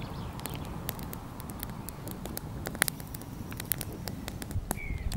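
Small campfire of twigs and branches crackling, with irregular sharp pops and snaps over a steady low hiss.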